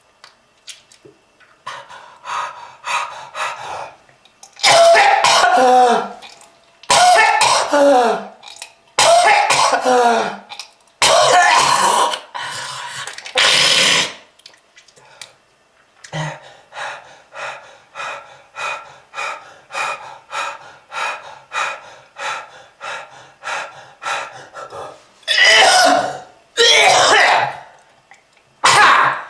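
A person in a long, heavy coughing fit, a smoker's cough with throat-clearing and hawking up phlegm. Several long harsh hacks, some with a voiced groan falling in pitch, give way in the middle to a steady run of short coughs about two a second, and heavy hacking returns near the end.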